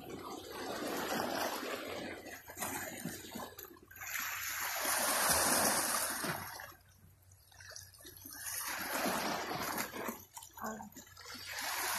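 Sea waves washing and splashing against a rocky shore, swelling and falling away every few seconds; the biggest surge comes about five seconds in.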